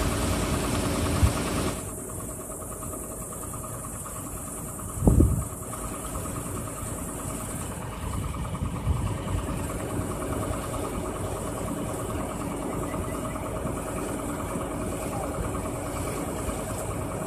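Engine idling steadily, with an even low hum; a brief louder burst comes about five seconds in.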